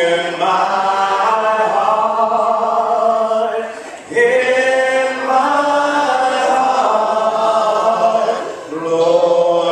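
Church congregation singing a cappella, many voices holding long notes in phrases, with short breaks between phrases about four seconds in and again near the end.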